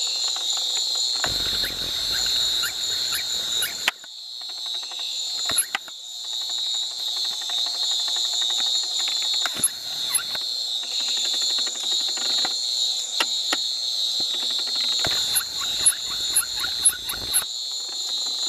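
Night-time tropical rainforest insect chorus: a steady, high-pitched drone. Scattered clicks and two spells of low rumbling come through it, about a second in and again near the end.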